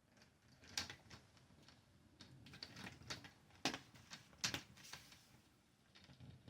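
Plastic clicks and snaps of a laptop's front screen bezel being pressed back onto its clips, about a dozen irregular clicks with faint handling rustle between them.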